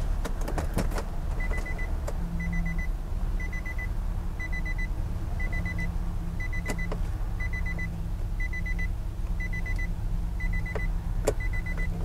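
Electronic beeper sounding a short rapid trill once a second, starting about a second and a half in, with a few sharp clicks of a key being handled at the ignition.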